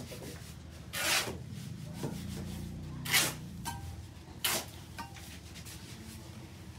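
Scraping strokes on a hard surface, each a short rasp lasting about a third of a second. There are three of them, irregularly spaced about one to two seconds apart, over a low steady hum.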